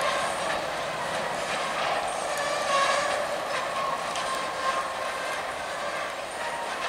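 Freight cars rolling slowly along the track, steel wheels clicking over the rail joints, with a metallic squeal that comes and goes from the wheels.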